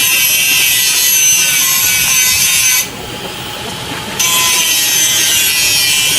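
Small dynamo motor of a homemade wearable handsaw running at speed, spinning its plastic blade with a high hissing whine. It cuts out for about a second around three seconds in, then starts up again.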